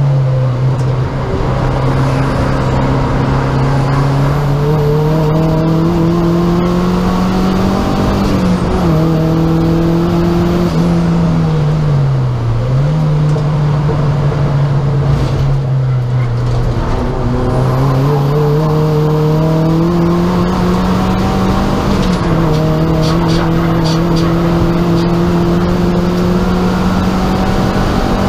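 Inside the cabin of a Rover 200 Turbo 'Tomcat' race car at speed: its turbocharged four-cylinder engine climbs steadily through the revs, drops sharply at upshifts about eight seconds in and again near the end, and sags around twelve seconds before pulling up again. Road and wind noise run underneath.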